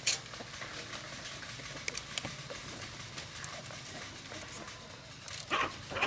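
Sharp clicks and snips of hand pliers working on a bamboo frame: a loud snip right at the start, a few light clicks around two seconds in, and a louder pair of short sounds near the end.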